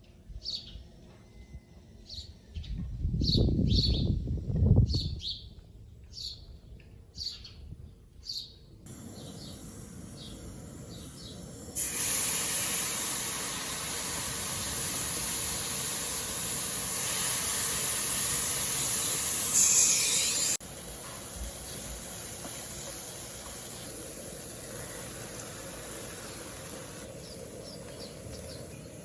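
Small birds chirping, with short high calls repeated many times, for about the first nine seconds. After a cut there is a steady hiss, much louder from about twelve seconds in until it drops off suddenly around twenty seconds.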